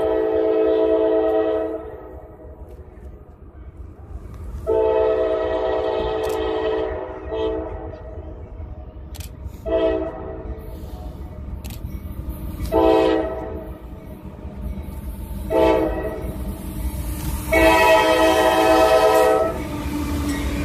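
Norfolk Southern diesel freight locomotive sounding its air horn as it approaches, a chord of several tones in a series of blasts: two long, three short, then another long one near the end. The train's rumble grows at the very end as the locomotives reach the platform and pass close.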